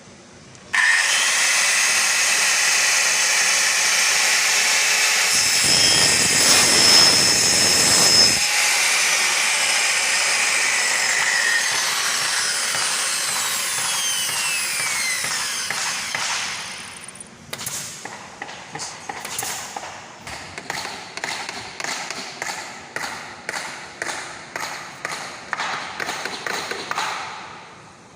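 A power tool's motor starts abruptly and runs at speed, then winds down with a falling whine after about a dozen seconds. It is followed by a steady run of short clicks or taps, a little faster than one a second.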